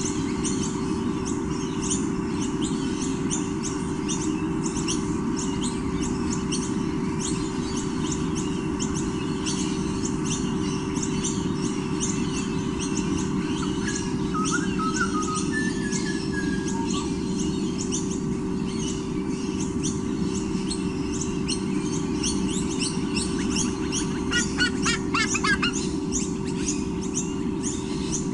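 White-bellied sea eagle chicks squonking, with a louder quick run of calls near the end, over constant high-pitched chirping and a steady low hum.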